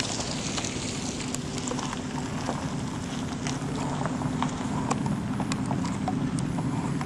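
A cow's hooves clopping irregularly on pavement as it walks, over the steady low hum of a vehicle engine running at low speed.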